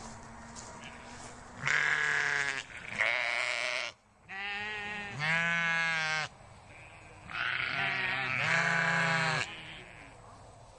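Sheep bleating, about five or six wavering calls one after another with short pauses between them.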